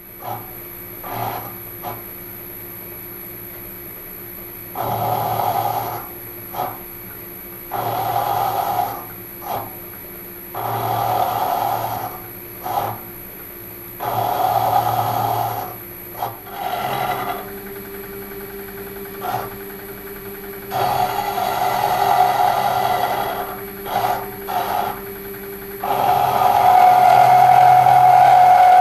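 Milling machine running steadily while its cutter bites into a steady-rest casting in repeated cuts a second or several seconds long, the work being swivelled about a rod against the cutter; a long, louder cut starts near the end.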